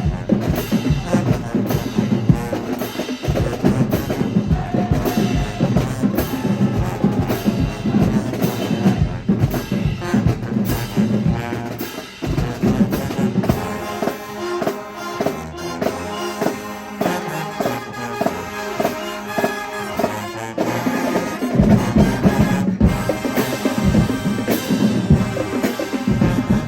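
Marching band playing drums and brass together. About halfway through, the sound thins to a lighter, steadily rhythmic passage. The full band comes back in for the last few seconds.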